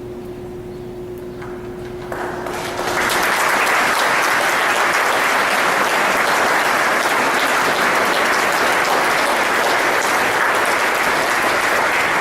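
Congregation applauding: the applause begins about two seconds in and swells within a second to steady, loud clapping.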